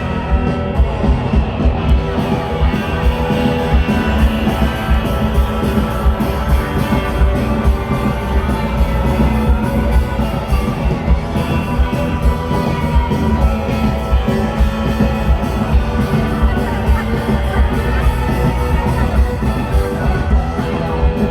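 Rock band playing an instrumental stretch: electric guitar, bass and drums with a steady beat and no singing.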